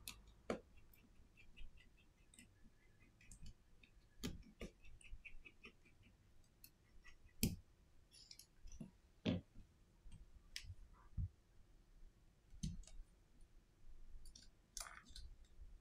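Scattered small clicks and ticks, with about half a dozen sharper knocks, from a precision screwdriver and the plastic and metal parts of a Samsung Galaxy A51 smartphone being handled during reassembly.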